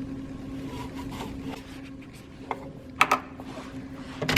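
A hotel room door lock and handle being worked, giving two sharp clicks, one about three seconds in and one near the end, over a steady low hum.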